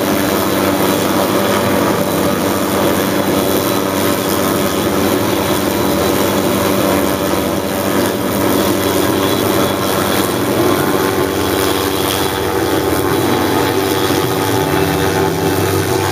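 Hughes 500 helicopter's turbine engine and rotor running steadily under load as it pulls hard line through the stringing blocks, a constant engine drone made of several steady tones.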